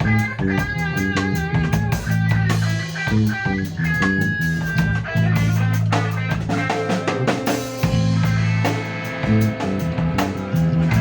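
A band playing: guitar lines over bass and a drum kit with bass drum and rimshots.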